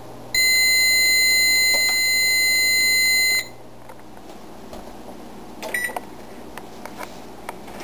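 Microwave oven timer reaching zero and sounding one long, steady electronic beep of about three seconds. A couple of seconds later comes a short beep with a few light clicks from the electric range's control panel as the oven is switched off.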